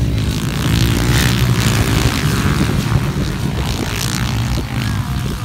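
Underbone motorcycles racing on a dirt flat track, their engines running together as a loud, steady drone.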